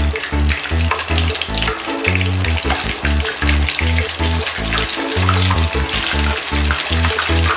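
Egg-and-crumb-coated cubes of tortoise jelly deep-frying in hot oil: a dense, even sizzle of fine crackles without much popping or spattering. Background music with a bouncy bass line plays under it.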